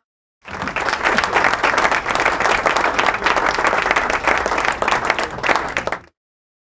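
Audience applauding: dense, steady clapping that starts about half a second in and cuts off suddenly about six seconds in.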